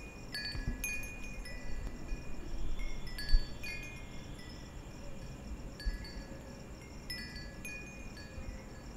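Wind chimes ringing: clear high tones struck at irregular moments, over a low rumble, with one short low thud a little over three seconds in.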